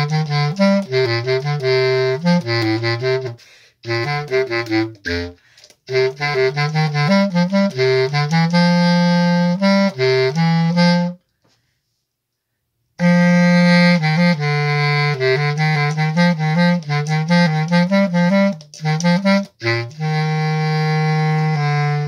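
Solo bass clarinet playing a melodic line of separate low notes, with a pause of about two seconds midway through.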